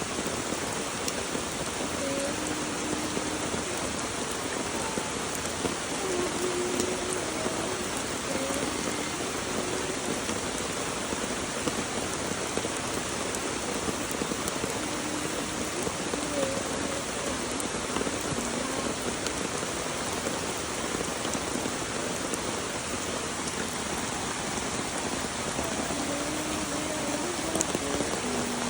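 Steady rain falling and pattering on surfaces, an even hiss with no letup.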